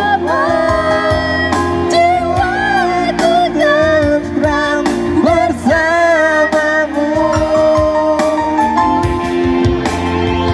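Music: a song with a wavering sung melody over sustained accompaniment and a regular beat.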